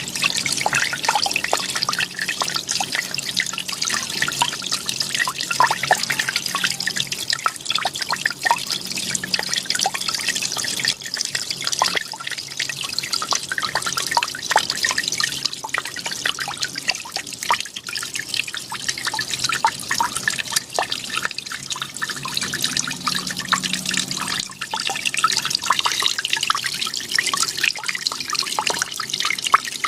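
Water from a small artificial waterfall trickling and splashing steadily into a pond, with many small drips and splashes.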